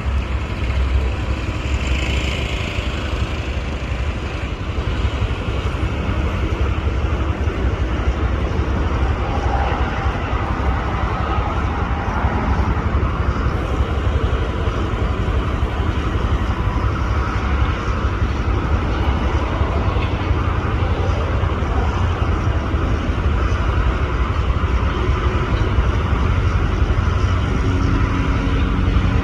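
Steady outdoor vehicle and machinery noise with a constant low rumble, holding level throughout.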